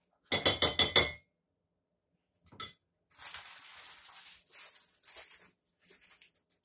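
A metal measuring spoon rapped about six times in quick succession against the rim of a mixing bowl, ringing clinks, with one lighter click a moment later. Faint intermittent rustling follows from about halfway in.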